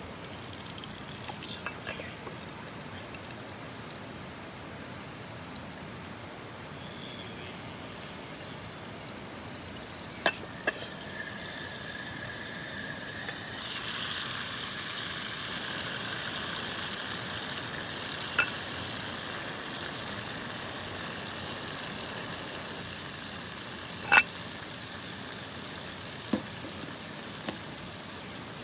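Food sizzling in a pan, the sizzle growing a little louder about halfway through, with a few sharp clicks.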